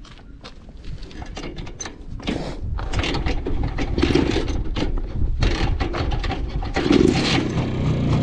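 Rajdoot 175 two-stroke single-cylinder motorcycle being kick-started, its engine catching about two seconds in and running. The dB killer baffle is back in the silencer, so it has the normal stock exhaust sound, a sign the baffle is fitted properly.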